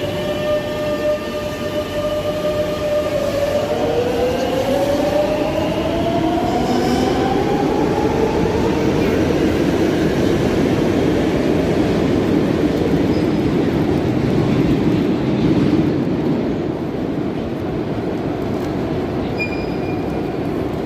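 Madrid Metro electric train pulling away: a steady electric whine from its traction motors rises in pitch as it accelerates over several seconds, then gives way to a steady rumble of wheels running on the rails.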